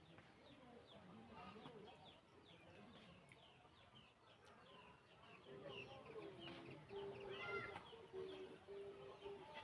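Faint chicken sounds: a string of short falling peeps, a few each second, with a low drawn-out call joining in about halfway through.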